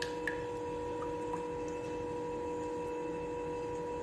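Steady electrical hum, with a few light clicks in the first second and a half from the batter being stirred by hand in a glass bowl.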